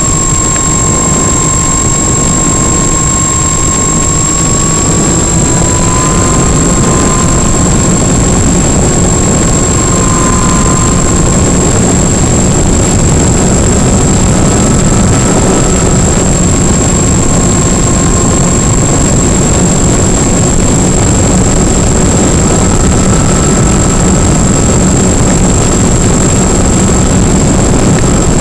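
Twinstar 2's twin electric motors and propellers whining in cruise, heard from on board the plane under a loud rush of wind and hiss. The two motors' whines sit close together, drifting up and down and crossing, with a steady high whistle above them.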